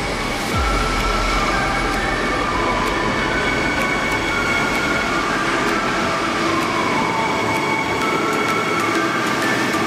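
HEMU-430X high-speed electric train moving along a station platform: a steady rumble that gets louder about half a second in, with several whining electric-drive tones that shift in pitch, one sliding down about two-thirds of the way through.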